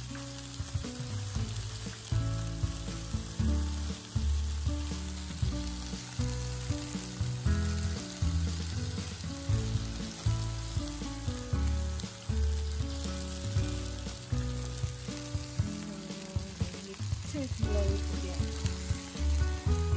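Bacon-wrapped sea scallop skewers sizzling and frying on a hot grill plate, a steady crackling hiss, under background music with a beat.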